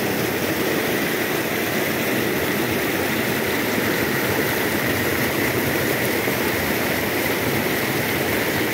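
Fast white water rushing over rocks below a reservoir spillway, a steady unbroken rush.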